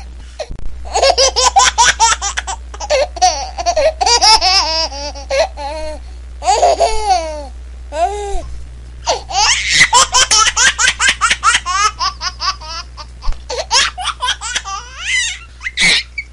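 A small child laughing hard in quick, high-pitched bursts, giggling on and off, over a low steady hum. It is a laugh sound-effect clip.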